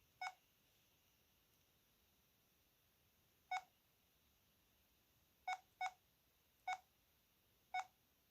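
Keypad beeps from a VK530 mobile phone: six short beeps, all at the same pitch, at irregular intervals as keys are pressed, with one about a quarter second in, one about three and a half seconds in, then four more in quick succession toward the end.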